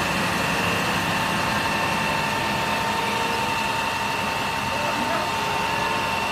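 A diesel water tanker truck (Isuzu FVZ) running steadily to drive its pump while the roof water cannon throws a jet of water: an even rushing sound with a steady high whine.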